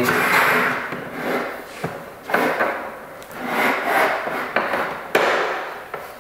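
Drawer side panels scraping and rubbing against a board as they are handled and fitted, with a few sharp knocks and clicks as the parts meet.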